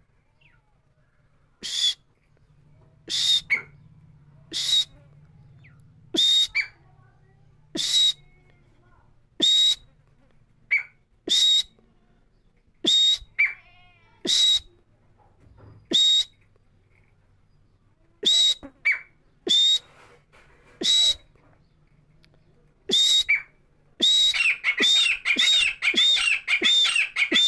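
Francolin (teetar) calling: short, sharp, high calls repeated about every one and a half seconds, breaking into a rapid string of calls near the end.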